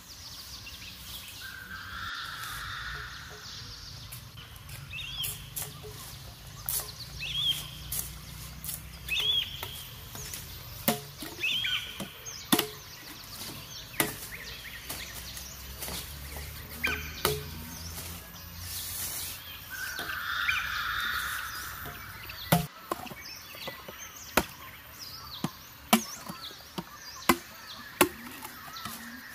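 Repeated sharp chopping strikes, a blade cutting into wood or plant stems: irregular at first, then settling to about one chop every second and a half near the end. Birds chirp between the chops.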